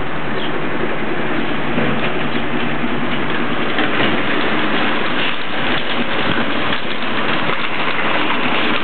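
Shelvoke & Drewry N type dustcart with Revopak body running close by: a loud, steady, noisy sound with faint rattles through it.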